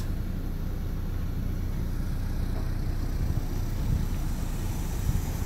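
Steady low mechanical hum, like an idling engine or running machinery, with a few soft low bumps in the second half.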